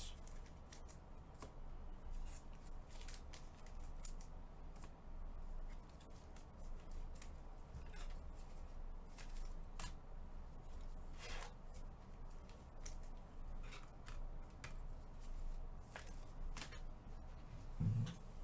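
Trading cards being handled and sorted: an irregular scatter of light clicks and snaps as cards are flipped and slid against one another, over a low steady hum.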